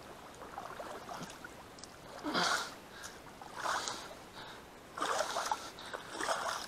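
Water splashing in a weedy ditch as a shot duck is hooked with a stick and dragged through the water, in four short bursts of splashing.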